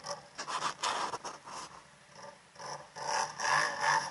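Footsteps crunching through dry grass, leaves and twigs, an uneven run of rustling steps that quickens to about two or three a second in the second half.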